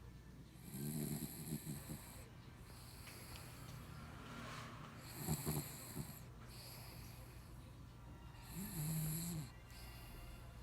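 A sleeping pet snoring: three snores about four seconds apart, each lasting about a second.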